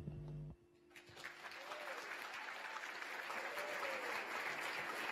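The final held note of the music stops about half a second in. An audience then applauds steadily through the rest.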